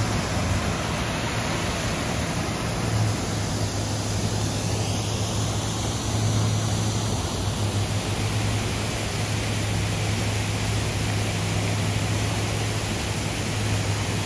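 Steady rushing noise with a low, steady hum underneath, unchanging throughout.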